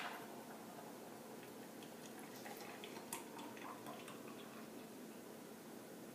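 Faint trickle of a thick, creamy cocktail poured from a metal cocktail shaker's strainer top into a tall glass, with a few light ticks along the way.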